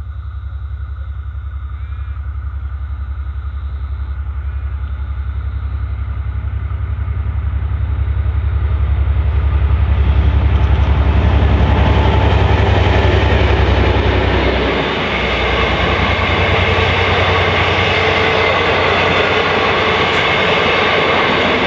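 EMD-engined diesel locomotive hauling passenger carriages, its deep engine drone growing louder as it approaches and dropping away as it passes about two-thirds of the way through. The carriages then roll by with steady wheel and rail noise.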